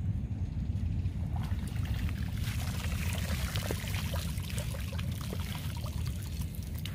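Water pouring and dripping from a cast net as it is hauled up out of the water, starting about a second and a half in and thinning out near the end, over a steady low rumble.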